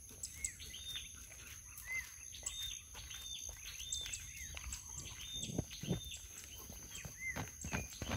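Birds calling, short arched notes repeated about twice a second, over a steady high-pitched insect drone.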